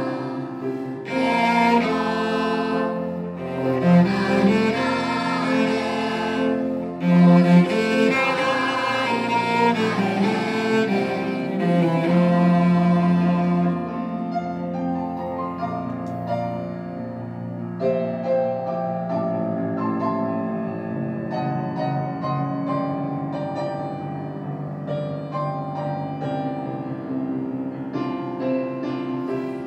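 Cello bowed, playing the slow melody of a Japanese school song. Full and loud for about the first half, then quieter and lighter in the second half.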